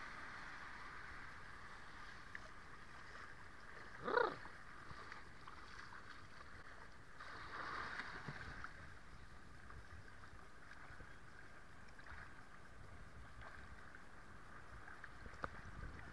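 Steady low wash of small waves lapping in the shallows, picked up by a camera at the water's surface. A slightly louder surge of water comes around eight seconds in. About four seconds in there is one brief bark-like call, the loudest sound.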